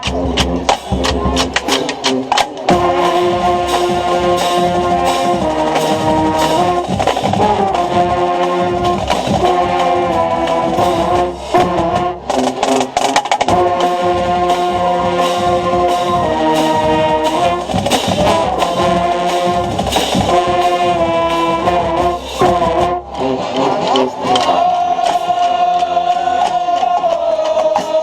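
Marching band playing loud brass chords over drumline hits, heard from inside the mellophone section. The chords change every second or two, with brief breaks, and the band holds a long chord near the end.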